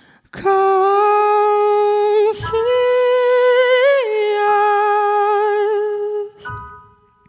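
Female singer holding long wordless notes with vibrato, stepping up a note about two seconds in and back down after about four, then breaking off near the end; faint stage piano notes ring under and after the voice.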